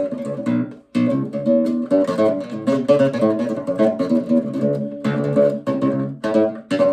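Acoustic guitar playing quick scale runs picked with alternating index and middle fingers in rest strokes (picado), with a short break about a second in.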